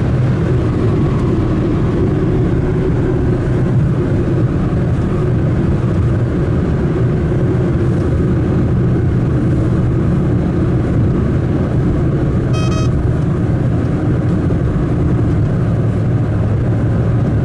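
Motor vehicle engine and road noise during a drive: a steady, unbroken low rumble.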